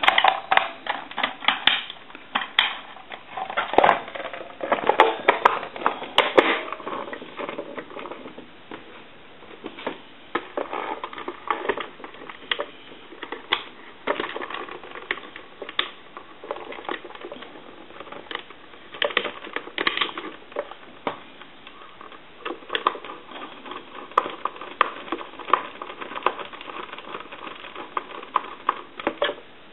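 Irregular clicking, tapping and light knocking of telephone parts being handled and fitted back together, as a Crosley 302 reproduction desk telephone is reassembled.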